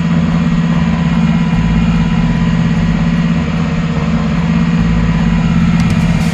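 Porsche 911 3.2 air-cooled flat-six engine running steadily at an even speed.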